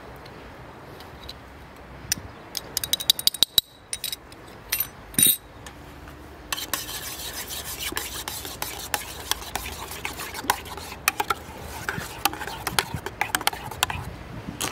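Food-preparation handling sounds: a quick run of clicks and knocks, two short louder bursts, then steady scraping and rubbing dotted with clicks.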